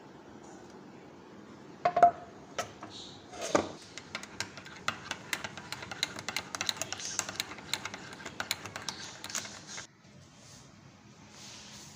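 A metal spoon stirring tea in a cup, clinking quickly and repeatedly against the sides for about six seconds, after a few louder knocks of metal on the cup. The clinking stops suddenly near the end.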